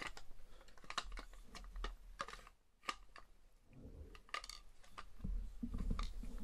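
Irregular light clicks and taps of hard plastic airsoft MP5 parts as a replacement stock is tried on by hand.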